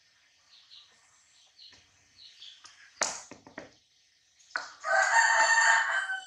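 A rooster crowing once, a loud drawn-out call lasting about a second and a half near the end. It follows a sharp sudden sound about three seconds in, and there are faint bird chirps before it.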